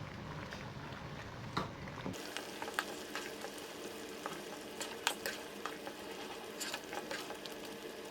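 Pea masala gravy bubbling in a pan while a spoon stirs in mashed potato, with scattered clicks and taps of the spoon against the pan from about two seconds in.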